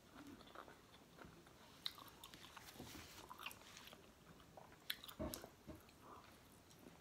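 Faint close-up chewing of fried fish and rice, with soft crunches and mouth clicks and a slightly louder cluster about five seconds in.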